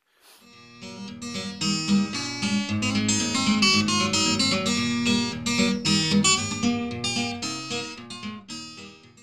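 Acoustic guitar music, strummed in a steady rhythm, fading in at the start and cutting off suddenly at the end.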